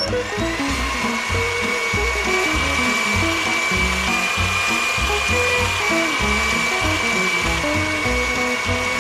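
Small portable blender motor running with a steady high whine, puréeing fruit with water. The whine rises briefly as it starts, then holds.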